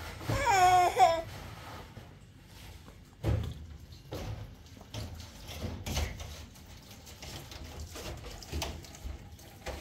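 A toddler babbles in a high, gliding voice for about a second, then scattered light knocks and taps as he handles plastic toys.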